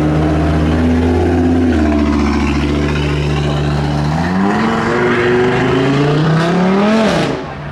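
Car engine pulling away: a steady engine note for about four seconds, then rising as it revs up, cutting back sharply near the end as the throttle is lifted.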